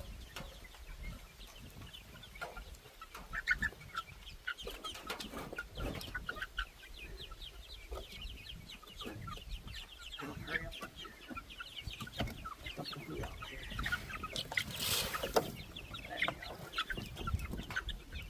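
A flock of chickens clucking and cheeping continuously, with one louder call about three-quarters of the way through.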